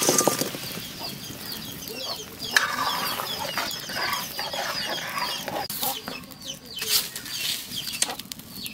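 Fried fish koftas tumbling from a steel colander into simmering curry in a wok at the start, then a steel ladle stirring and clinking against the pan. Chickens cluck throughout.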